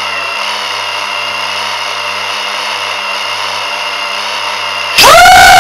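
A steady electric whine with a low hum, like small motors or electronics running, cut off suddenly about five seconds in by loud synthesizer music with gliding tones.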